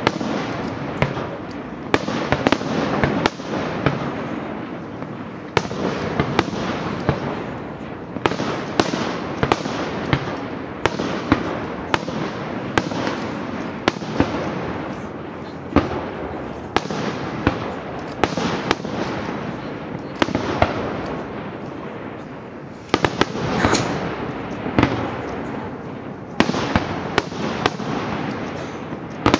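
Aerial fireworks display: shells bursting in quick succession, with sharp bangs over a dense, continuous crackle and rumble. There is a short lull about three quarters of the way through, then fresh loud bursts.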